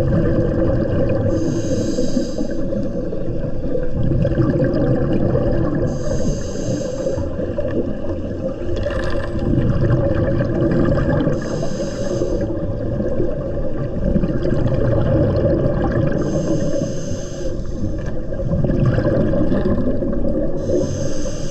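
Underwater sound of a scuba diver breathing through a regulator: a hissing breath about every five seconds over a steady low underwater rumble.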